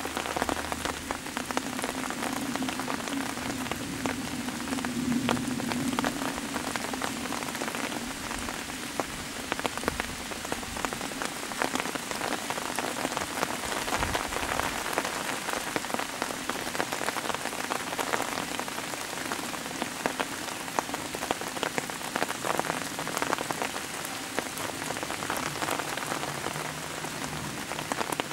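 Steady rain falling on leaves and undergrowth, with many single drops standing out as sharp ticks.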